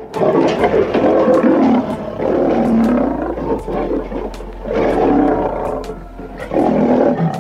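Lion roaring in three bouts, a long one followed by two shorter ones.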